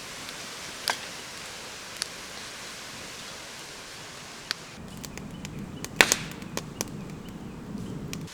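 Wood campfire crackling: a steady hiss with a few sharp, separate pops, turning into denser crackling with a low rumble about five seconds in, with the loudest pop around six seconds.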